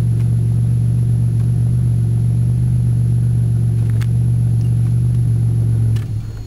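Buick 3.8-litre turbocharged V6 (LC2) in a 1991 Pontiac Firebird idling steadily, heard from inside the cabin. About six seconds in it is switched off at the ignition key and the running dies away.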